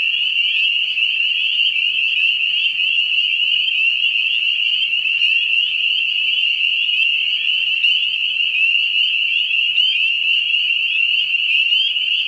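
Chorus of many spring peepers calling at once, their high, rising peeps overlapping into a steady shrill ringing.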